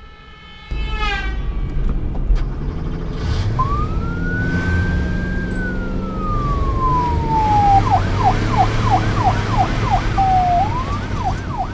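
Police car siren: one long wail that rises, then slowly falls, then switches to a fast yelp of about three sweeps a second, over a low vehicle rumble.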